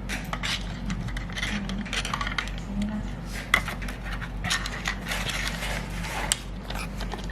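Irregular light clicks and clinks of small hard laptop parts being handled and moved about, with a sharper click about three and a half seconds in and another about six seconds in.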